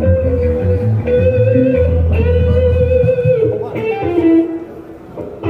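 Electric guitar played loud through the stage amplification during a band soundcheck: a long held, slightly wavering lead note for about three seconds, then a lower note, over a deep bass line that drops out near the end.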